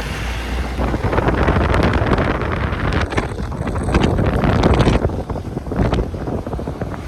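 Wind buffeting the microphone over a Hero Xpulse 200 motorcycle's single-cylinder engine running, with scattered sharp knocks and rattles from riding a rough off-road track.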